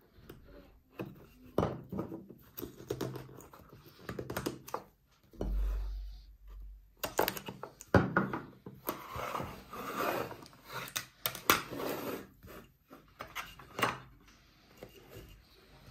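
Hands handling a small wooden presentation box and its clear sliding lid: irregular clicks, knocks and scrapes of wood and lid being moved, with a dull low bump about five and a half seconds in.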